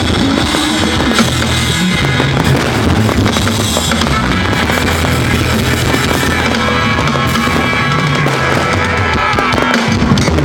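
Fireworks bursting and crackling in quick succession, with continuous music.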